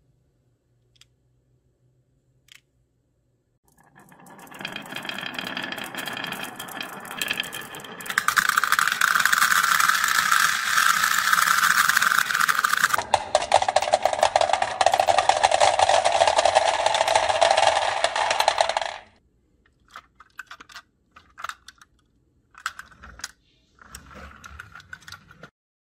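Many steel balls rolling down a wavy wooden marble-run slope: a continuous rattling roll that builds from about four seconds in, grows loud, drops lower in pitch midway and cuts off suddenly. Scattered clinks of the steel balls follow near the end.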